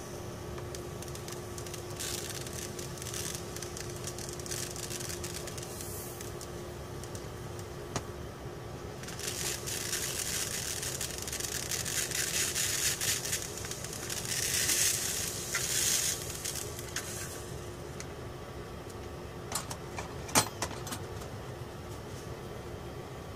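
Tiny solder balls poured from a small glass vial and rolling across a steel BGA reballing stencil as the jig is tilted and shaken: a fine, rustling rattle, loudest past the middle. A few sharp clicks near the end as the metal jig is handled.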